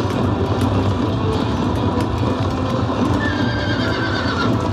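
A horse whinnies once, its pitch falling, about three seconds in, over a steady rumbling, clattering din of battle.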